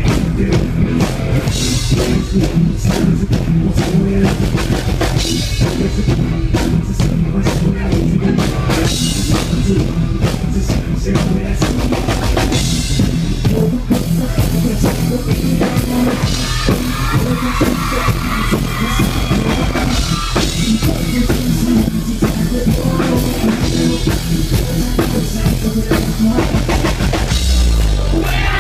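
Live rock band playing a loud, driving dance track, with a drum kit beating steadily under electric guitar.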